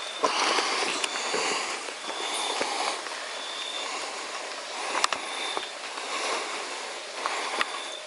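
Steady rush of running water, with a few sharp clicks and brief high chirps recurring every second or so.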